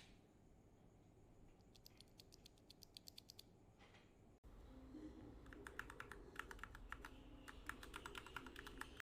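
Typing on a mechanical keyboard, quiet rapid keystroke clicks. A short run comes about two seconds in, then after an abrupt cut a longer, denser run of typing follows.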